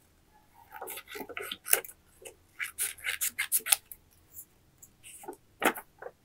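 Scissors snipping and paper being handled and rubbed: a run of short, crisp, irregular sounds in clusters with brief pauses between them.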